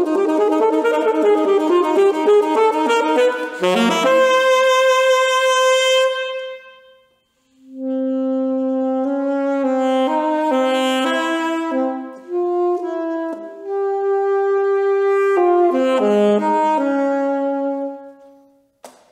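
Alto saxophone playing solo: a fast, wavering run, then a long held note that fades out. After a short pause, a slower phrase of lower notes follows, with a held note near the end.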